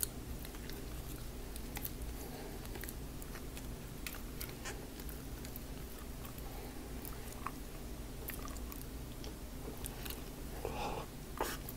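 A man chewing a crunchy strip of food close to the microphone: an unbroken run of small crisp crunches and clicks.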